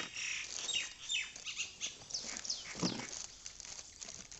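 Cardboard carton flaps being pulled open and the plastic wrapping inside handled: rustling and scraping, with short high falling squeaks or chirps scattered throughout and a heavier rustle about three seconds in.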